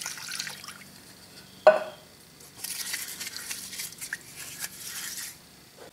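Kerosene pouring from a can into a plastic solvent pan over a lathe chuck body, trailing off in the first half second, then a sharp knock about two seconds in. After that, a brush scrubs the chuck body in the kerosene for about three seconds with a scratchy, swishing sound.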